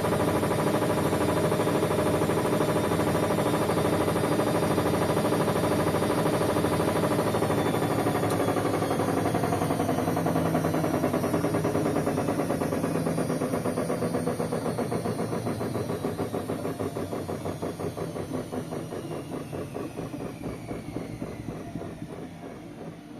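Whirlpool washing machine spinning its drum at speed, then coasting down: the whine falls steadily in pitch, the pulsing slows and the sound fades over the second half, as the spin comes to an end.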